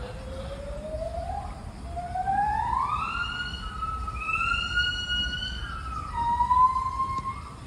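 Siren wailing: a single tone that rises slowly over about three seconds, holds high, then drops a little and holds again near the end.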